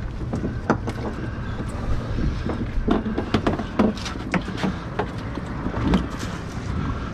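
Irregular knocks, taps and slaps as a redfish is worked out of a landing net and held down on a boat deck, over a steady low rumble.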